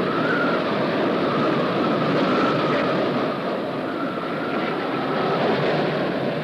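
Storm wind and heavy sea: a steady rushing noise with a faint wavering whistle over it.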